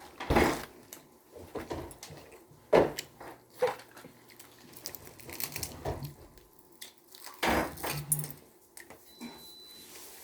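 Tableware at a dinner table: cutlery and dishes clinking and knocking at irregular moments, loudest about half a second in, near three seconds and around seven and a half seconds.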